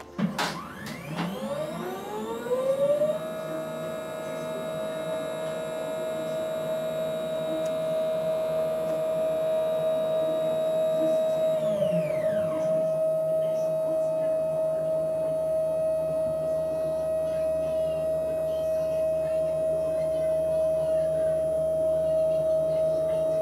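Azimuth and altitude drive motors of a 12-inch SkyWatcher Dobsonian slewing the telescope in GoTo mode. Their whine rises in pitch as they speed up, then holds steady. About halfway through one motor winds down with a falling pitch and stops, while the other keeps running and winds down at the very end.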